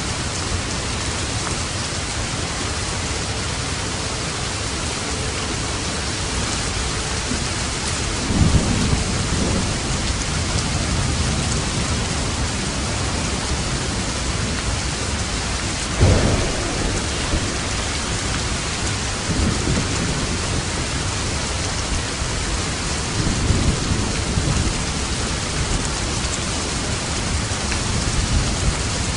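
Steady heavy rain with rolls of thunder: a rumble about eight seconds in, a sharp crack of thunder about sixteen seconds in, and further low rumbles later.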